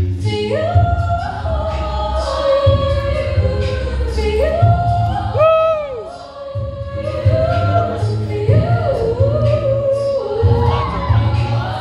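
A cappella song: a girl sings the lead melody into a microphone, holding and bending long notes, backed by a large choir's voices with a pulsing low bass part.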